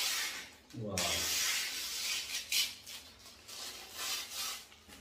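Plastic wrapping rustling and crinkling in a run of scratchy handling noises as it is pulled off a home-theatre centre speaker, dying away near the end.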